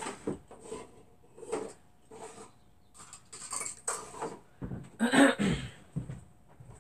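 Small hard objects being handled and knocked on a tabletop: a string of short, irregular clinks and clatters, the loudest about five seconds in.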